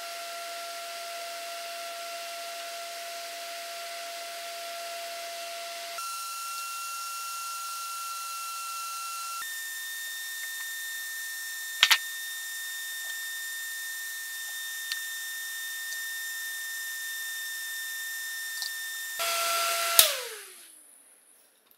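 Small axial fan in a metal housing running with a steady whir, with a sharp double click about halfway through. Near the end its toggle switch clicks off and the fan winds down, its pitch falling as it fades out.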